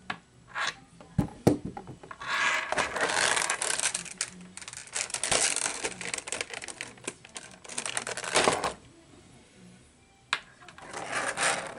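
Toy packaging handled by hand: a few knocks and clicks as a cardboard box is brought in and set down, then several seconds of rustling and scraping against clear plastic trays, with another short burst of clicks and rustling near the end.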